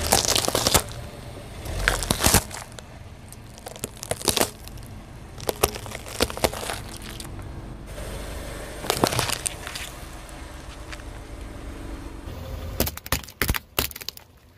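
A car tyre rolling over and crushing small objects, among them a cigarette packet and plastic toys: sharp cracks and crunches that come in several separate bursts with short gaps between, the densest run of crackling near the end.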